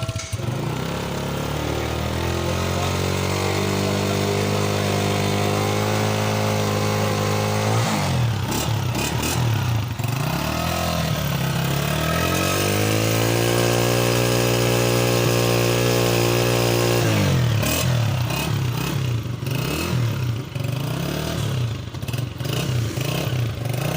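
Honda CG125's single-cylinder four-stroke engine revved up and held at a steady higher speed twice, falling back between the two, then settling to an uneven idle for the last several seconds.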